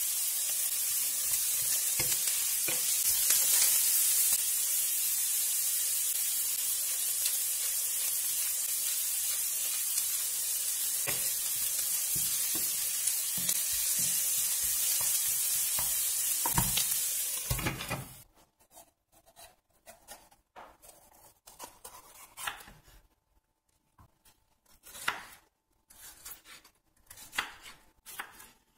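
Diced onion sizzling in hot oil in a stainless steel frying pan, a steady hiss with the occasional knock of a wooden spoon stirring it. The sizzle cuts off suddenly about eighteen seconds in, and a few separate soft strikes follow as a knife cuts red pepper into strips on a wooden cutting board.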